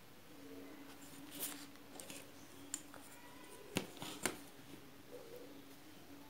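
Faint handling sounds of a red felt-tip pen stroking along a steel ruler on paper, then the ruler shifted and set down with a few sharp clicks, the loudest two about half a second apart.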